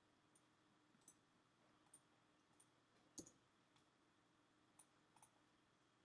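Near silence with faint computer mouse clicks, about eight scattered irregularly, the loudest about three seconds in.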